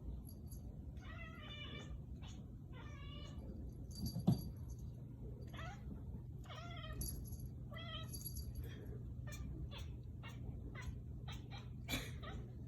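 Kitten making odd, wavering, broken-sounding meows while chasing a laser pointer: several trembling calls of about half a second each. There is a sharp thump about four seconds in, and a run of short clicks in the second half.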